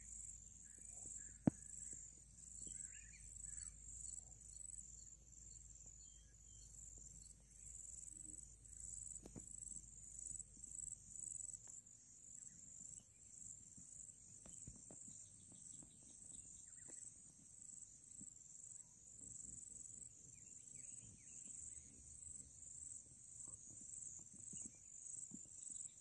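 Faint, steady high-pitched chorus of insects such as crickets at a reedy lakeshore, with a few faint bird chirps at the start. A single sharp click about a second and a half in.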